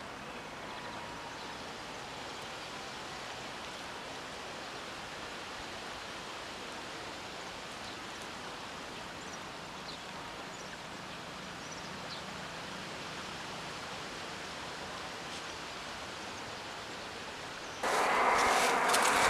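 Steady outdoor background noise, an even hiss-like rush, with a few faint short high chirps. Near the end a much louder rushing noise cuts in abruptly.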